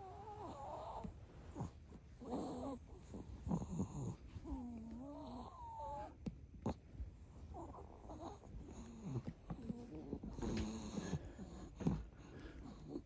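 Long-coat Chihuahua just woken from sleep, making cute squeaky nasal 'kupi' sounds through its nose: a series of short, high squeaks that rise and fall in pitch, with short pauses between them.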